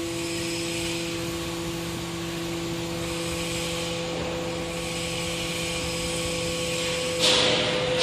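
Hydraulic scrap-metal baler's power pack running with a steady hum and whine. About seven seconds in, a louder rush of noise sets in as the press works.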